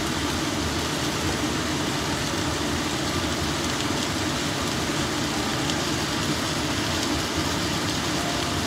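Diced beef sizzling steadily as it sautés in oil in a large stainless steel stockpot, with a low steady hum underneath.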